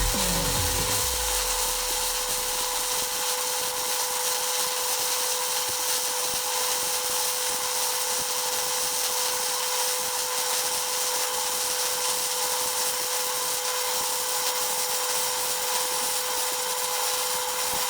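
Clarke Turbo MIG welder laying a continuous weld bead on a steel bucket bracket: a steady sizzling hiss with a constant hum under it.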